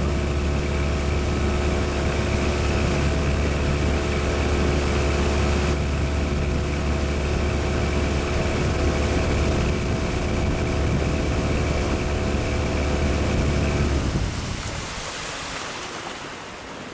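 Motorboat engine running steadily, a deep hum with a few steady higher tones, that drops away about 14 seconds in and leaves the rush of water and wind.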